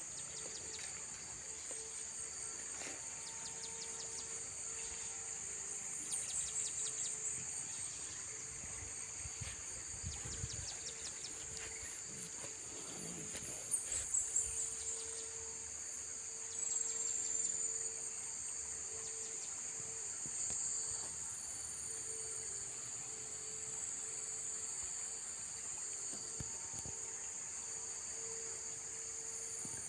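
Steady chorus of insects: a continuous high-pitched buzz, with a lower steady drone beneath. Now and then a bird gives a short, high, falling call, and there are stretches of rapid ticking. A few knocks sound about halfway through.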